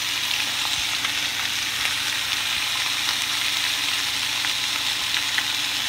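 Bone-in, skin-on chicken thighs frying skin-side down in a hot stainless steel skillet: a steady sizzle with scattered small crackles.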